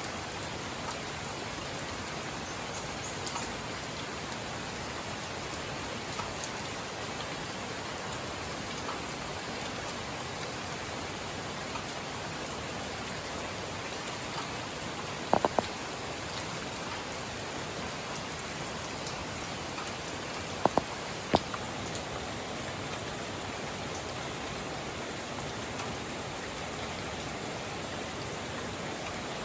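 Steady rain falling, an even hiss, with a few sharp louder ticks: three close together about halfway through and three more a few seconds later.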